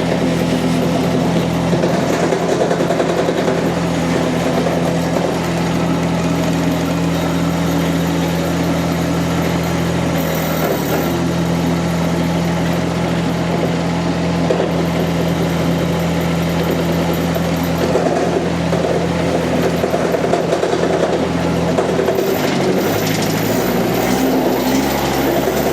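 Three-cylinder Kubota D1105 diesel engine of a mini skid steer running steadily and a little rattly. Its engine note changes about 22 seconds in, after a brief dip around 10 seconds.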